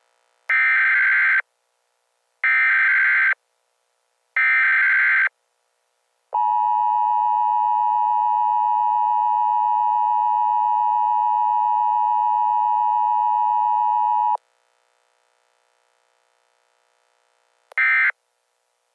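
NOAA Weather Radio SAME alert: three one-second bursts of the warbling digital header tones, then the steady 1050 Hz warning alarm tone held for about eight seconds. After a pause, the first short end-of-message data burst sounds near the end.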